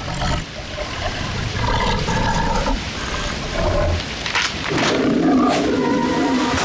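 A big cat growling and roaring on a cartoon soundtrack, loudest in the last two seconds.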